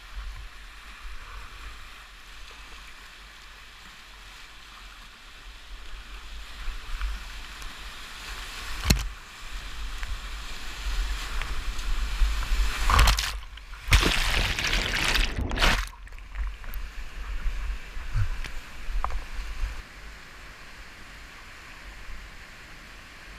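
Whitewater rushing around a kayak as it runs a rapid: a steady hiss of moving water that builds, grows loudest for a few seconds midway as the boat drops over a ledge drop and white water washes over the bow, then settles back to a steadier rush. A few sharp knocks stand out, the first about nine seconds in.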